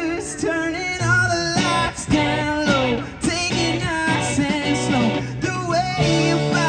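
Live rock band playing through a PA: electric and acoustic guitars, bass and drums, with a singer's voice over the top.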